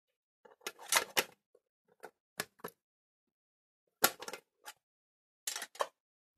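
Hands working with rolls of adhesive tape and cardboard: a scattered series of short rustles, scrapes and clicks, the sharpest about four seconds in.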